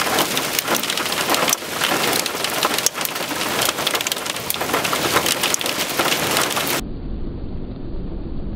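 Hailstones pelting ground already covered in hail: a dense patter of many small impacts with sharp individual clicks. About seven seconds in it cuts suddenly to a duller, lower rumbling noise.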